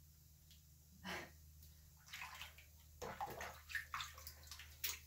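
Hand splashing and swishing in bathwater with a layer of bath-bomb jelly on top: one splash about a second in, then irregular sloshing from about two seconds on, over a low steady hum.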